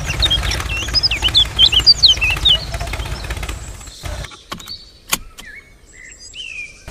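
Small DC motor of a homemade toy tractor running with a low buzz while birds chirp loudly over it; the motor stops about four seconds in, followed by two sharp clicks and a few short bird calls.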